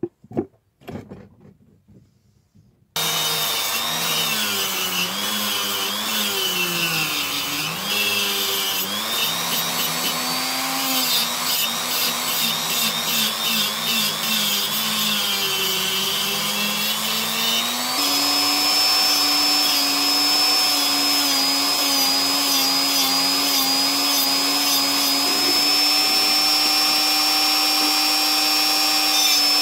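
A few light clicks of handling, then a handheld rotary tool runs from about three seconds in, its pitch dipping and wavering as it grinds the steel chisel tip held in a vise. About eighteen seconds in, the sound changes to a steadier, slightly higher whine as a sanding drum works the tip.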